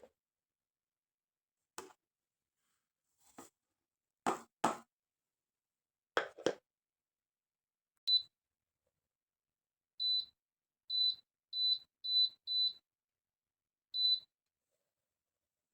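A few light knocks and clacks, then seven short electronic beeps from a kitchen appliance's control panel, several in quick succession.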